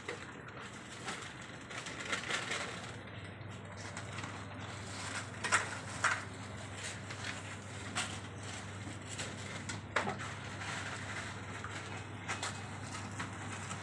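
Shop room noise: a steady low hum under a background hiss, with a handful of sharp clicks and knocks scattered through it.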